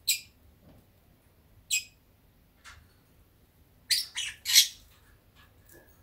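Lovebird chirping: short, sharp, high-pitched chirps, one at the start, another a little under two seconds in, a fainter one, then a quick run of three louder chirps about four seconds in.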